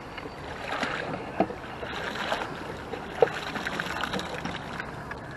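Rustling and scraping of a wet bag being handled and rummaged through, with two short sharp knocks, the first about a second and a half in and the second about three seconds in.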